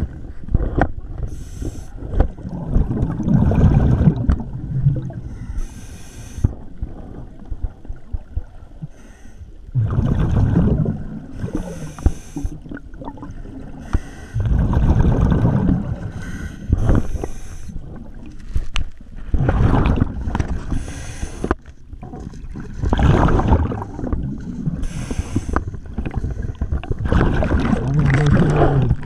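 A scuba diver breathing underwater through a regulator: a short hissing inhalation followed by a louder, lower rush of exhaled bubbles, the cycle repeating about every five seconds.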